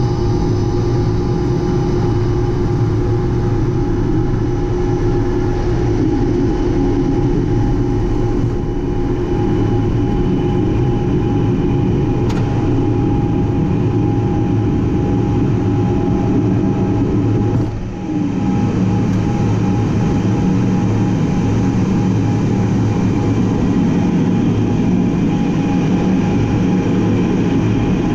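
Cockpit noise of an A-10 Thunderbolt II's two General Electric TF34 turbofan engines at takeoff power, a steady loud rumble with a constant whine as the jet rolls, lifts off and banks into a climb. A single click about twelve seconds in, and a brief dip in the noise with a short falling tone a little after halfway.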